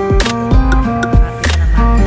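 Music with a steady drum beat, low thumps and sharp hits about twice a second, under held chords.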